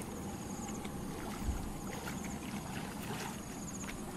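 Water sloshing and splashing as people wade in a muddy canal and grope under the water with their hands, with a few faint knocks.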